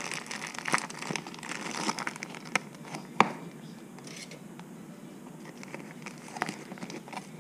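Crinkling and rustling of a seasoning package being handled, with scattered small clicks and one sharp click about three seconds in.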